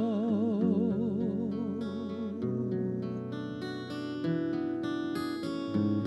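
Acoustic guitar playing a short instrumental passage between sung lines, picking individual notes and chords. A male singer's held note with wide vibrato fades out over the first second and a half.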